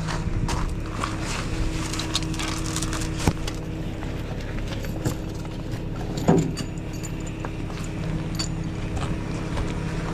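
Vehicle engine running steadily with a low hum, with scattered light clicks and rattles and one louder knock about six seconds in.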